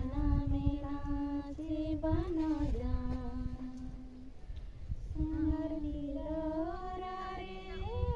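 Slow singing in a fairly high voice: long held notes that slide up or down between pitches, with a short break a little after four seconds in, over a low rumble.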